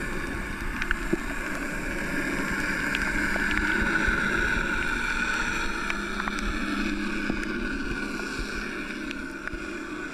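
Underwater sound picked up by a camera submerged over a coral reef: a steady, muffled drone with scattered sharp clicks. The drone swells to about four seconds in, then slowly fades.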